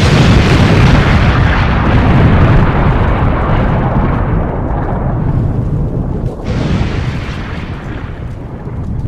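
Explosion sound effect: a loud, deep blast that fades slowly over several seconds, with a hissier swell about six and a half seconds in.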